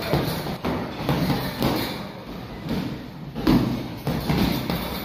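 Punches landing on a hanging heavy bag: a run of irregular thuds, the loudest about three and a half seconds in.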